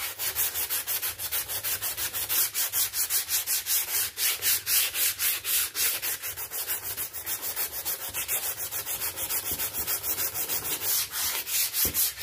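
Sandpaper rubbed by hand along the cut edge of a fibreboard panel in quick, even back-and-forth strokes, about five a second, to sand the edge down so the panel will fit. The strokes stop just before the end.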